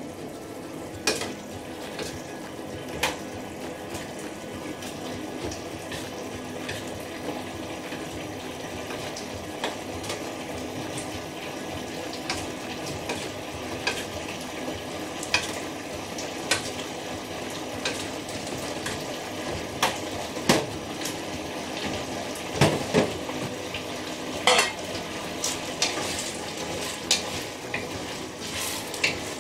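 Glutinous rice in seasoned liquid sizzling steadily in a frying pan as it is stir-fried with a wooden spatula, cooking down until the liquid is gone. Scattered sharp clinks of utensils against the pan and a metal bowl, more of them in the second half.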